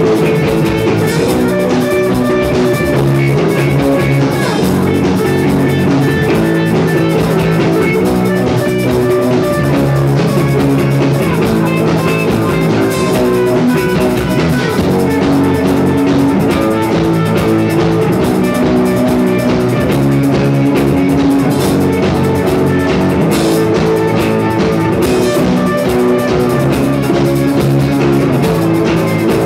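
Rock band playing: guitar over a drum kit, loud and steady with no break.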